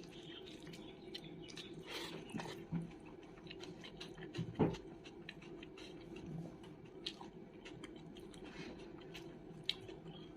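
Close-miked chewing and wet mouth sounds of a person eating a meal of pork curry and rice, with many small clicks, and a single louder thump about halfway through.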